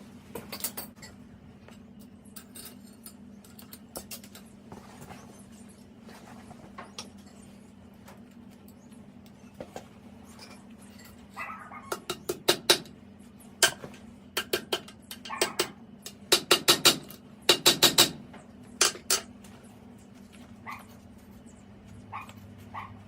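Sharp metal taps and clinks, some single and some in quick runs of four or five, over a steady low hum.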